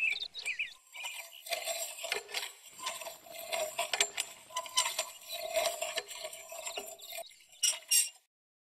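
Manual steel wheelchair clicking and rattling as it is pushed and turned by hand over a hard floor, with a tone that comes and goes. A few bird chirps at the very start. The sound cuts off suddenly near the end.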